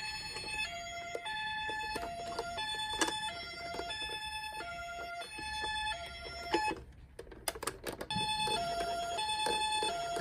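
Toy ambulance's electronic two-tone siren alternating high and low notes roughly every two-thirds of a second, with small clicks throughout. About seven seconds in it stops for a second or so, then starts again.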